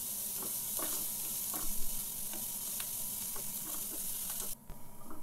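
Chopped onions sizzling in butter in a non-stick kadai, with a wooden spatula lightly scraping and tapping the pan as they are stirred while sautéing toward golden. The sizzle cuts off suddenly about four and a half seconds in, leaving a few light clicks.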